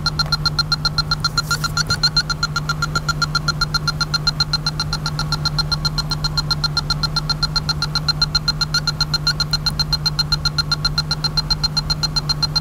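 Electronic A/C refrigerant leak detector beeping rapidly at an even, unchanging pace while its probe samples the dash vents, with no speed-up that would mark refrigerant from a leaking evaporator. A steady low hum of the running car lies underneath.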